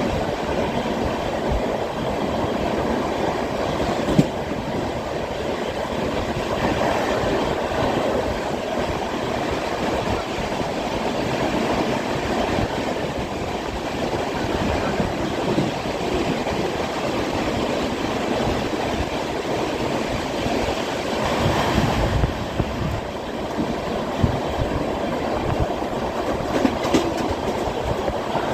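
Moving Indian Railways train heard from on board: steady rumble and rattle of the wheels running on the track, with a few sharper louder knocks along the way.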